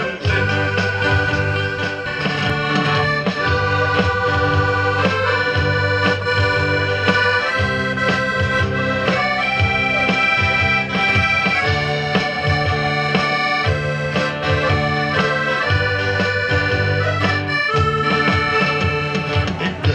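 Live band playing an instrumental passage: a piano accordion carries the melody in held notes, backed by electric and acoustic guitars and keyboard.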